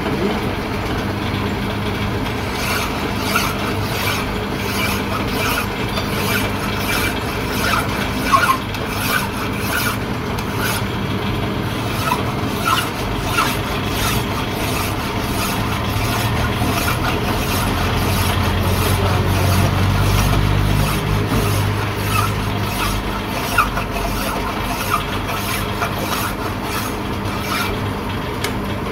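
Metal lathe running with a steel shaft spinning in the chuck while a hand file is stroked back and forth across it: repeated rasping strokes of metal filing over the lathe's steady hum. The shaft is being filed smooth and to size on the lathe.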